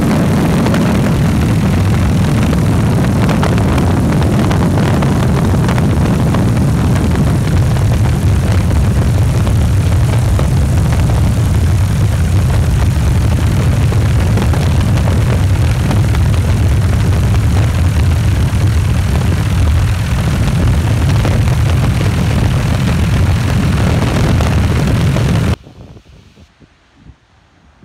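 Helicopter in flight heard from inside its doorless cabin: a loud, steady low rotor and engine drone with rushing air. It cuts off suddenly near the end, leaving only faint wind noise.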